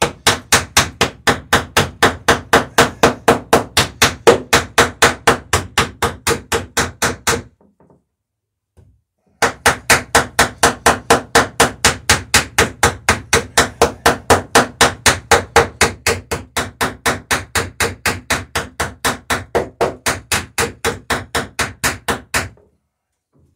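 Hammer peening over a rivet end on a wooden dory's planking, setting the rivet and drawing the planks tight. The blows are rapid and even, about four a second, in two long runs with a pause of about two seconds between them.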